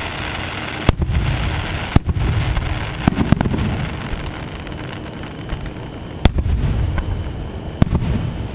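Aerial fireworks shells bursting: about six sharp bangs at uneven gaps, each followed by a low rolling rumble.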